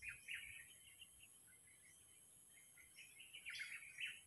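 Faint chirping of small birds in short clusters, once near the start and again about three seconds in.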